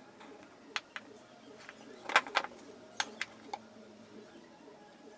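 Sharp light clicks and taps of a steel rule and pen being handled and set down on a plywood jig while marking out, about eight in all, the loudest pair a little after two seconds in.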